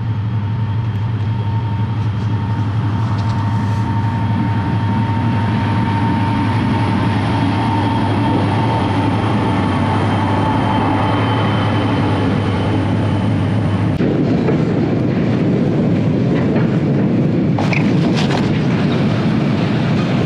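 Freight train carrying fuel tank cars passing close by, heard from inside a tent: a loud, steady rumble of wheels on the rails with clickety-clack and a faint whine that fades out. About two thirds of the way through, the low part of the rumble changes.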